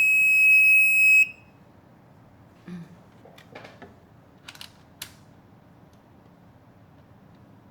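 Continuity tester giving one steady high-pitched beep lasting just over a second, the signal that the wire between the two probed pins is unbroken. A few faint clicks follow as the probes are handled.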